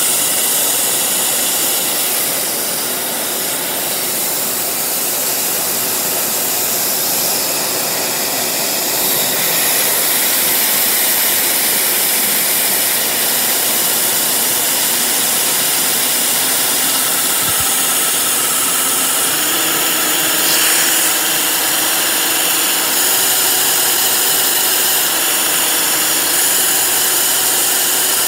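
Vacuum cleaner running at full power, pulling air through a Lego turbine engine: a loud, steady rush of air with a high whine. The pitch of the whine shifts a few times, once near the middle and again about two thirds through.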